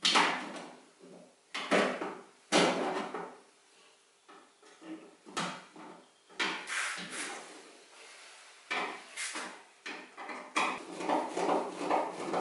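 A chrome-plated plastic headlamp rim being pushed and worked onto the edge of a VW Bay Window's steel headlamp opening. There are three loud knocks and scrapes in the first three seconds, scattered lighter clicks, then from about ten seconds in a quick run of clicks and knocks as it is pressed home around the edge.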